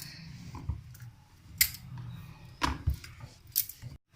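Wooden rolling pin rolling dough out on a chakla (rolling board), with a few sharp clacks of the pin against the board over a soft rubbing.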